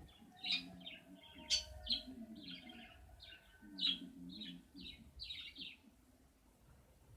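A bird chirping in a quick run of short, high notes, about a dozen, that stop about six seconds in.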